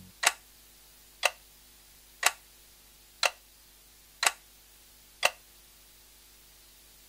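Clock-ticking sound effect: six sharp ticks, evenly spaced one second apart, over a faint steady background hum.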